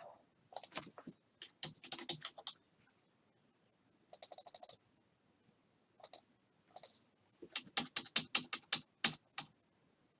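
Computer keyboard typing in several short bursts of rapid key clicks, with pauses between.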